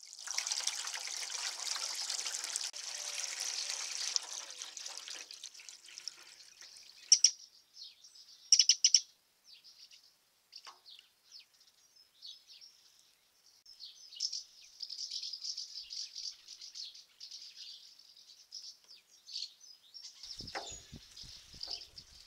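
A stream of water pouring into a shallow birdbath basin for the first few seconds, then small birds calling in short high chirps, with two loud sharp calls about seven and nine seconds in. A few low thumps near the end.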